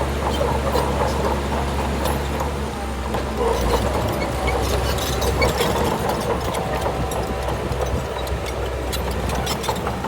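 Heavy diesel engine of a Shantui bulldozer running steadily, with frequent sharp clicks and rattles over it.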